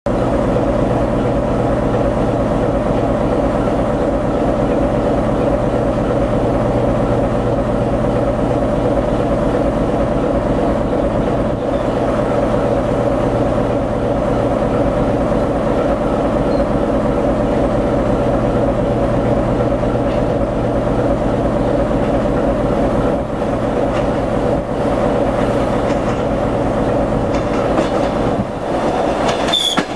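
A diesel engine idles with a steady drone close by. Near the end a diesel multiple unit draws up and passes, with a few clicks of its wheels over the rails.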